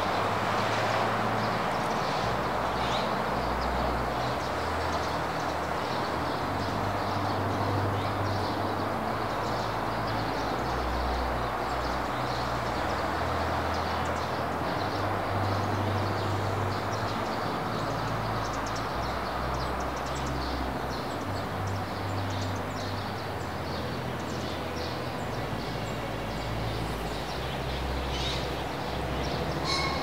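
Wind rushing through forest foliage, a steady hiss with uneven low rumbling gusts on the microphone.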